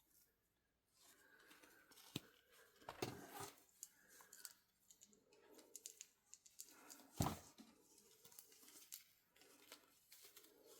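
Faint rustling and scattered light taps of a doll and its packaging being handled, with a small cluster about three seconds in and the loudest tap about seven seconds in.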